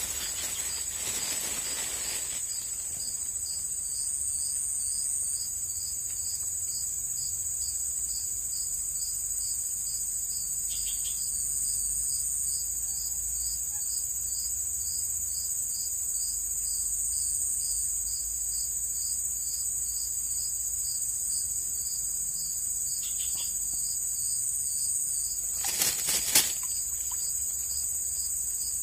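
Steady chorus of insects: a continuous high buzz with a fast pulsing trill just beneath it. About 26 seconds in, a brief cluster of a few sharp sounds stands out, the loudest moment.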